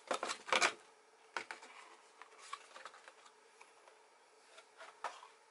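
Cardboard packaging being handled: a short rustle and scrape in the first second as a cardboard insert is lifted out of its box, then a few faint taps and rubs of cardboard.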